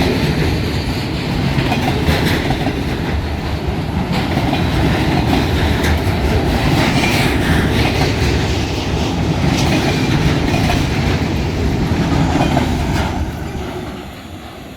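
Freight train rolling past, its wheels clattering over the rails and its cars rumbling steadily, fading away near the end.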